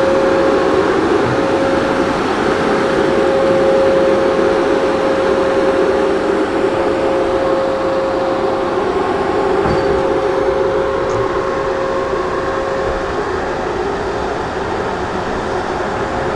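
Heavy diesel equipment running steadily, with a steady whine over its rumble: a skidder towing an empty log truck in through mud.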